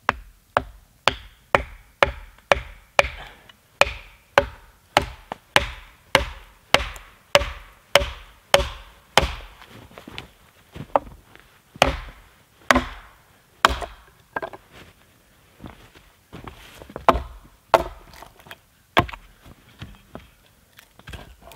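An axe driving homemade white oak wedges into a long log to split it along a crack, wood striking wood. The blows come fast and regular at about two a second, then slower and more spaced, with a few heavier blows in the second half.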